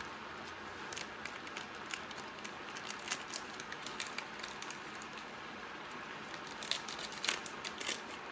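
Shrimp, cabbage and noodle stir fry cooking in a pan: a steady sizzle with small crackles, and a few sharper clicks near the end.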